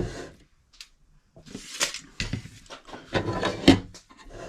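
Drawers of a small steel tool chest being slid and handled: two bursts of sliding, rattling metal with sharp clicks, the loudest click just before the end.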